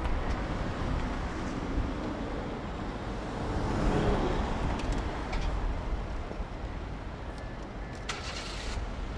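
Road traffic with a steady low rumble, swelling as a vehicle passes about four seconds in. Near the end a small car drives over the level crossing, with a short rattle as it crosses the rails.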